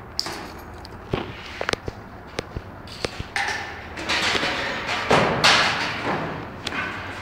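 A string of sharp taps and knocks, then several louder rustling swishes with a few thuds, from hanging wallpaper: a flat smoothing tool working the paper at the ceiling edge.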